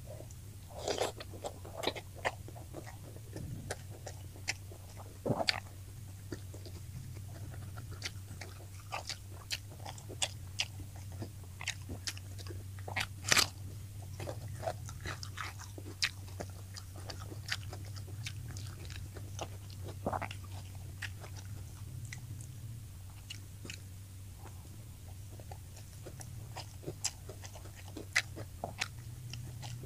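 A person chewing and biting fried tilapia close to the microphone: irregular crisp crunches and wet mouth clicks, over a steady low hum.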